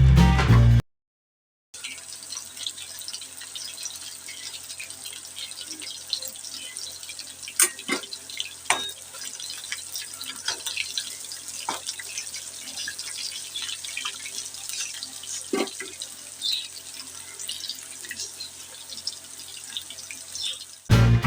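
Chicken pieces frying in hot oil: a steady sizzle with scattered sharp pops and crackles.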